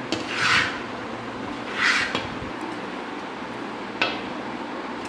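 A long-handled spoon scraping and stirring crumbly beetroot malt in a heavy black iron kadai as the mixture cools off the heat: two scraping strokes in the first two seconds and a sharp click about four seconds in, over steady fan noise.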